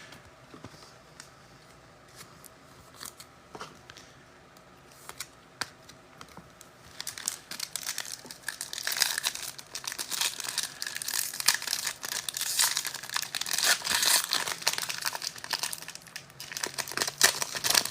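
A few faint clicks of handling, then from about seven seconds in, dense crinkling and tearing as a foil wrapper on a pack of football trading cards is ripped open.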